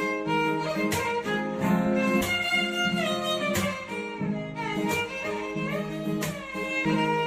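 Background music: a melody on violin over sustained strings and a plucked accompaniment, with a regular beat about once a second.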